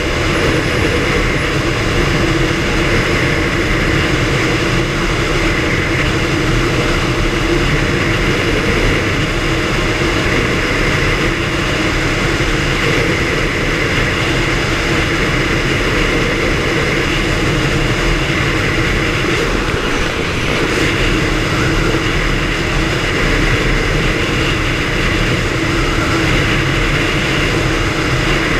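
Stroked two-stroke outboard motor on a boat, running steadily at speed.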